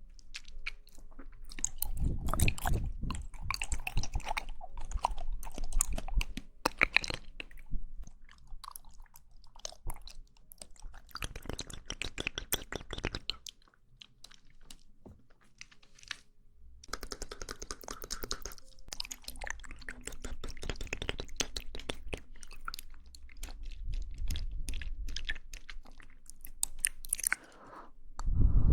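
Close-miked mouth sounds of chewing jelly: several spells of dense, rapid wet clicks, with a short pause about halfway through.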